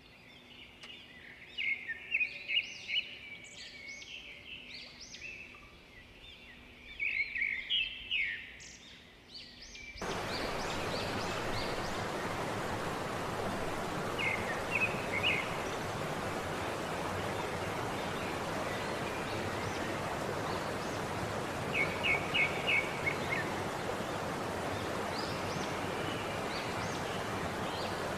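Birds chirping and calling over a quiet background; about ten seconds in, the steady rush of a waterfall cuts in abruptly, with a few short bird chirps still heard over it.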